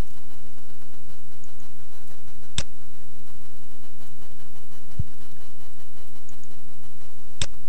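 Computer mouse clicks: two sharp clicks about five seconds apart with a duller tap between them, over a steady low electrical hum.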